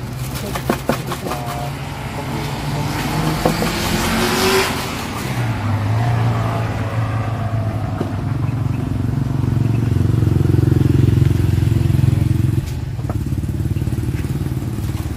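A motor vehicle engine runs close by as a steady low drone. It swells after about five seconds and drops off suddenly near the end. A swell of noise builds to a peak about four and a half seconds in, and a few light clicks come at the start.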